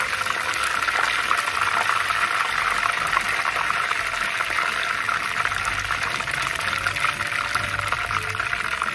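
Battered shrimp deep-frying in hot oil: a steady, dense sizzle with fine crackling.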